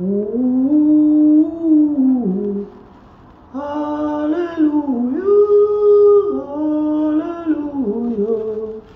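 A single voice singing a slow wordless melody in long held notes that glide from one pitch to the next, with a short pause about three seconds in, inside a small hard-walled cubicle.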